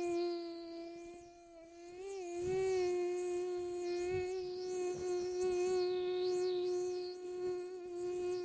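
Mosquito in flight: the steady whine of its beating wings, wavering slightly in pitch and growing louder about two seconds in. It cuts off abruptly at the very end.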